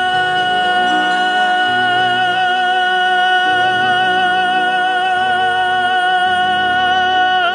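Sufi kalam: a singer holds one long, steady high note over low instrumental accompaniment that shifts beneath it.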